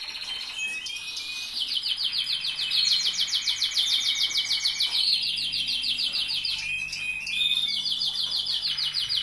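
Canaries singing: long, fast rolling trills of rapidly repeated high notes, one phrase running into the next, with a short break about seven seconds in.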